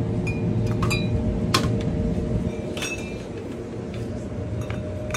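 Glass beer bottles clinking as they are taken off a shelf and set into a plastic shopping basket: a handful of sharp clinks in the first three seconds, over a steady low hum.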